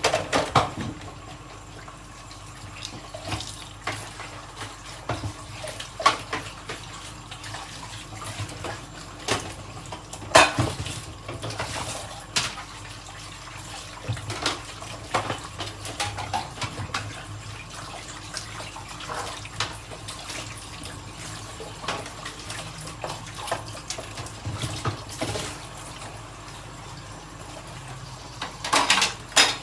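Washing dishes at a sink: tap water running steadily while dishes clink and clatter against each other in short knocks. There is a quick flurry of clatter right at the start and another near the end.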